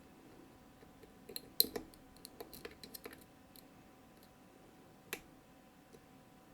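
Small metal clicks and taps of a flag-style dimple pick working the pins of a Mottura CP6 dimple lock: one sharp click about a second and a half in, a quick run of lighter clicks around two to three seconds, and another click about five seconds in.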